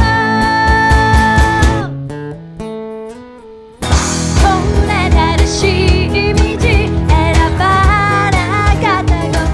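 A pop-rock band playing with a lead singer. A held sung note over the band drops away about two seconds in to a short, quieter break with a few stepped instrument notes. The full band and vocals come back in sharply about four seconds in.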